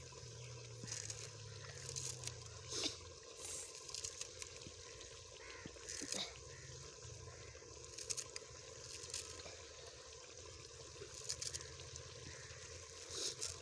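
Small knife cutting fresh coriander stems held in the hand over a metal bowl: irregular crisp snips, one every second or so, over a steady low hum.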